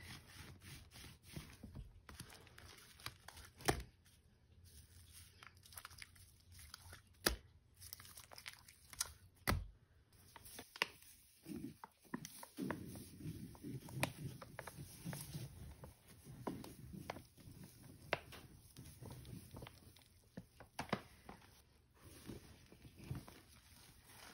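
Soapy sponge being squeezed and squished by hand: scattered crackles and squelches of foam, turning into fuller, lower-pitched squelching from about halfway through.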